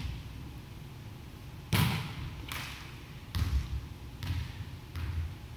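A volleyball bouncing on a wooden gym floor: one loud bounce about two seconds in, then about four weaker bounces spaced under a second apart.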